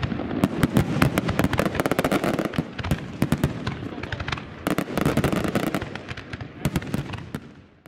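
Fireworks going off in a rapid barrage: many sharp bangs and crackles over a low rumble, thinning and fading out near the end.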